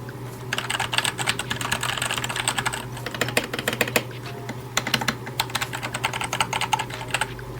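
Fast typing on a Keychron K4 mechanical keyboard: a rapid run of key clacks that starts about half a second in, breaks off briefly around the middle, and stops shortly before the end, over a steady low hum.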